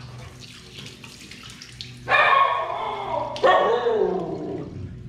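Water splashing in a basin as a face is rinsed by hand. About two seconds in, a dog barks loudly twice, each bark drawn out and falling in pitch, and the barks drown out the water.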